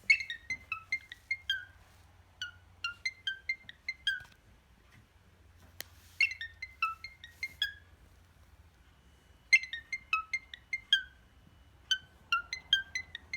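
Cockatiel whistling the iPhone ringtone melody: five runs of quick, clear piping notes, each run about a second and a half long, with short pauses between.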